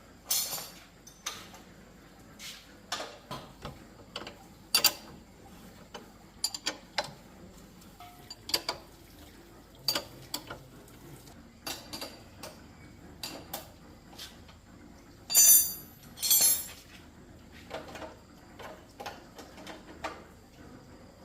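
Metal tools and bicycle parts being handled: irregular clinks and taps, with two louder, longer clatters about fifteen and sixteen seconds in.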